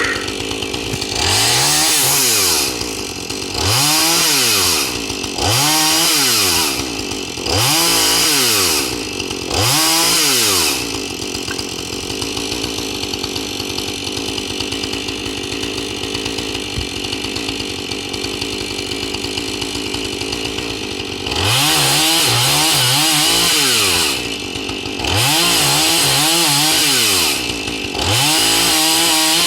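Chainsaw engine revved in short bursts of about two seconds each, pitch rising to full throttle and falling back, five times in a row; it then idles for about ten seconds before three more bursts.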